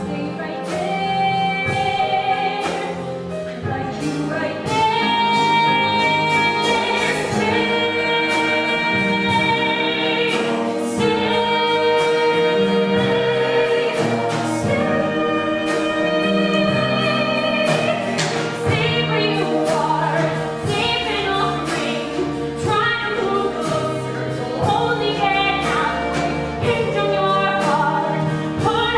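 Live musical-theatre song sung on stage over a pit band, with long held vocal notes.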